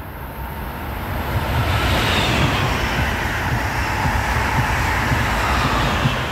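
A train passing on the tracks at speed. The rush of wheels on rail and air swells over the first couple of seconds and holds loud, with a hiss that slides down in pitch as it goes by.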